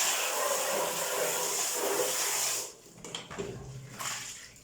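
Water pouring in a steady rush for about two and a half seconds, then cutting off, as the vacuum cleaner's filter is rinsed; faint sloshing and handling sounds follow.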